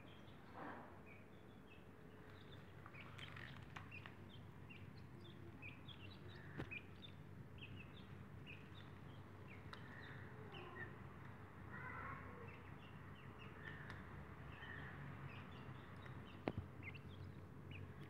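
Grey francolin chicks giving faint, short high peeps, scattered irregularly, over a steady low hum. Two sharp clicks stand out, one about a third of the way in and one near the end.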